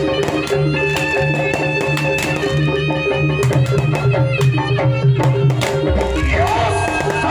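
Music: sustained instrument tones over a steady drum beat, with a gliding melodic line coming in about six seconds in.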